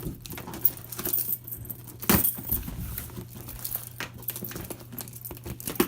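A shipping package being handled and opened: crinkling, rustling packaging with scattered clicks and one sharper clack about two seconds in, over a low steady hum.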